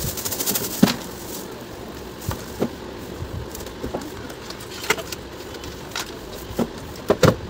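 Plastic wrapping crinkling as it is pulled off a new plastic mixer grinder body, with scattered clicks and knocks from the body being handled. A cluster of sharper knocks comes near the end.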